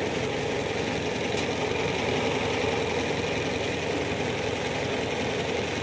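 Suzuki car engine idling steadily.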